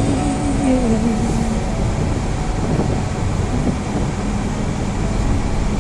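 Steady road and engine rumble heard from inside a car's cabin while driving.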